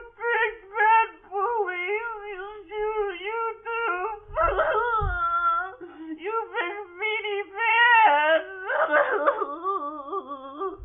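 Baby crying: a continuous high-pitched whimpering and wailing that wavers up and down in pitch, with louder wails about four seconds in and again about eight seconds in.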